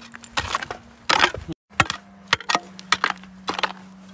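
Shovel chopping into stony soil in a quick, irregular run of sharp strikes, two or three a second. The sound cuts out completely for a moment about a second and a half in.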